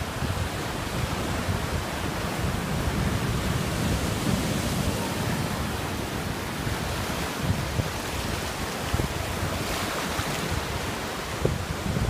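Ocean surf breaking on a rock breakwater and washing in over the sand, with wind buffeting the microphone. A louder hiss of breaking surf comes about ten seconds in.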